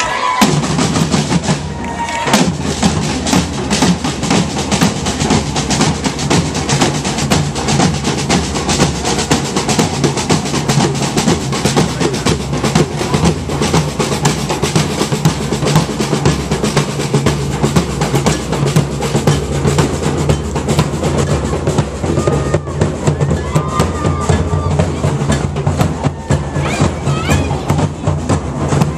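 A marching drum group of snare and bass drums playing a fast, driving beat, with rapid snare strokes over a steady bass-drum pulse.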